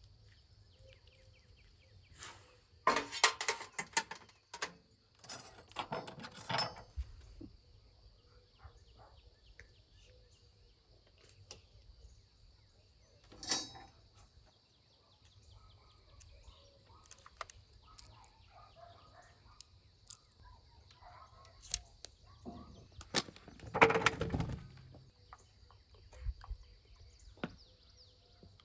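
Metal skewers clinking and scraping and aluminium foil crinkling in irregular bursts as foil-wrapped pieces of meat are pulled off the skewers. A faint steady high tone runs underneath.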